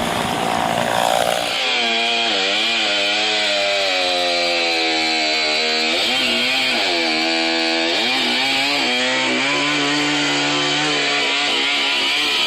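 Chainsaw running at high revs, coming in about a second and a half in. Its pitch sags and recovers as it works under load, dipping most deeply about six and eight seconds in.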